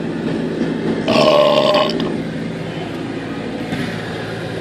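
Water and soap washing over the truck's windows, heard from inside the cab as a steady rushing hiss. About a second in, a loud held tone sounds for under a second at an even pitch.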